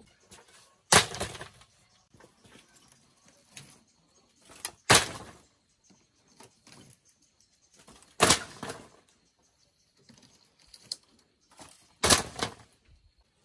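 Four heavy blows, about three to four seconds apart, each followed by a short crackling tail.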